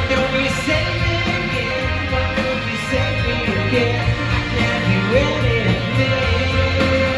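Live rock band playing through a venue PA, heard from the audience: electric guitar, bass, drums and keyboards, with a male lead vocal singing over them.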